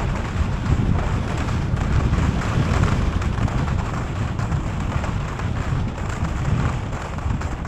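Wind buffeting the microphone: a steady, fluttering rumble of noise.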